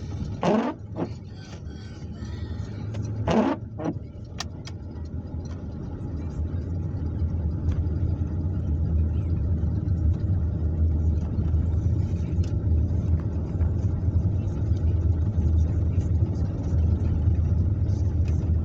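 Car cabin with the steady low rumble of engine and tyres on a snowy road, growing louder after about six seconds as the car picks up speed. Two short sounds falling in pitch come in the first four seconds.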